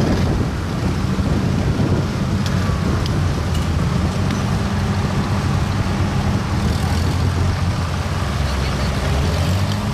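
Old Farmall tractor engines running at low speed as the tractors drive past one after another, a steady low engine hum.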